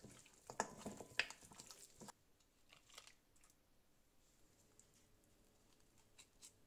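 Hands working flour into raw pork rib pieces in a glass bowl: quick, soft clicks and rustles for about two seconds, then they stop suddenly and only a few faint ticks follow.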